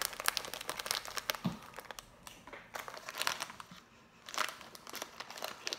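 Snack wrapper crinkling and crackling in short spells as it is pulled open and handled.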